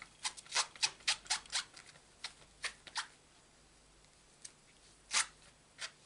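A clear acrylic stamp block rubbed on a damp cloth to clean the ink off the stamp: a quick run of about ten short swishes in the first three seconds, then two more near the end.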